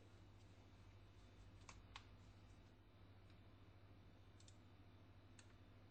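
Near silence over a low steady hum, with a few faint clicks of the metal tissue press and spatula being handled: a pair about two seconds in, and single ones later.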